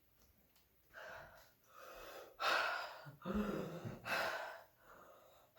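A person gasping and breathing hard in a run of exaggerated, forceful breaths that grow louder, with a short voiced grunt about three seconds in: psyching himself up before a lift.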